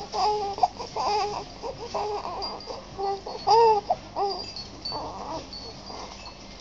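Baby fussing with a string of short, high-pitched cries and whimpers that die away after about five seconds.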